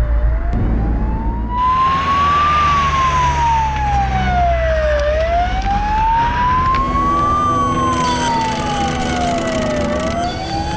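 Ambulance siren sounding a slow wail, one tone rising and falling about every five seconds, twice through, with a low engine rumble under it in the first second or so.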